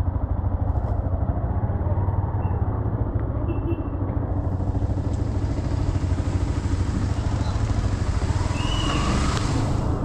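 Yamaha R15 sport motorcycle's engine running as the bike pulls away and rides on a wet road. From about four seconds in, a steady rush of wind and road hiss joins the engine.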